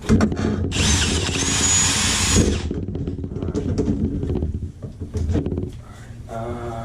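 Power drill-driver running in uneven bursts, loudest for about two seconds starting near the first second.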